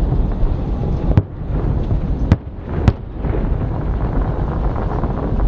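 Aerial fireworks going off: a dense, continuous low rumble of bursts, with three sharp cracks, one about a second in and two more close together at around two and a half to three seconds.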